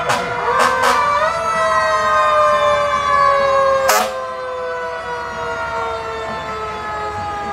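Fire department vehicle's siren, its pitch rising briefly about a second in and then falling slowly and steadily, with a few short sharp blasts near the start and one about four seconds in.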